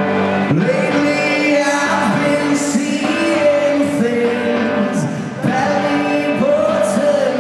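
Rock band playing live on electric guitars, bass and drum kit, with singing over it, heard from the audience in a large arena.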